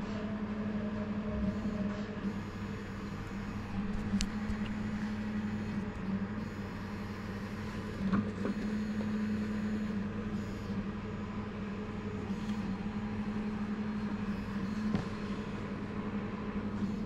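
Steady low hum, with a few faint clicks and light knocks.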